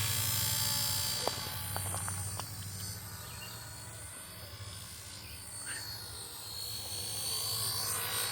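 Radio-controlled model helicopter in flight: a high motor whine that rises and falls in pitch as it moves about, over a steady low pulsing hum from the rotor, with a few light clicks about a second in.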